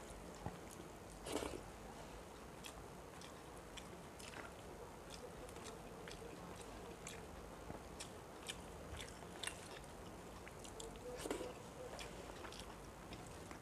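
Faint sounds of eating by hand: fingers mixing rice and fish curry on a steel plate, with many small scattered clicks and chewing. Two slightly louder clicks come about a second in and a couple of seconds before the end.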